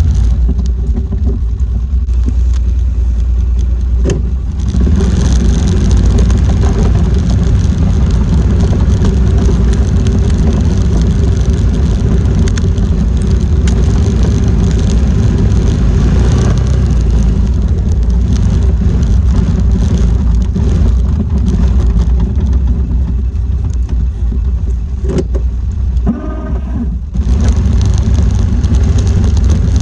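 Four-wheeler (ATV) engine running steadily while plowing snow, its level dipping briefly about four seconds in and again near the end.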